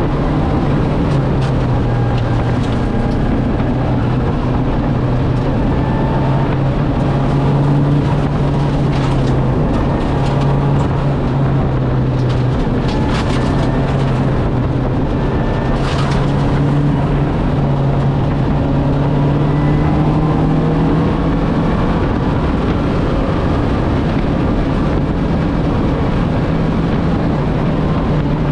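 Lancia Delta Integrale's turbocharged four-cylinder engine running hard at fairly steady revs, with road and tyre noise and a few sharp clicks.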